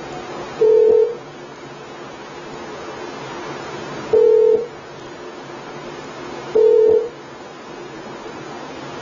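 Beep of an electronic voting machine simulator program on a computer, sounding once for each vote recorded for a candidate. There are three short steady beeps of about half a second each, at uneven gaps, with a steady hiss between them.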